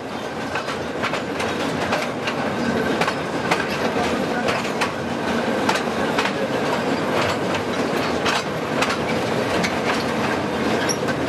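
Underground mine conveyance moving, with a steady rumbling rattle and frequent irregular metallic clanks and clicks.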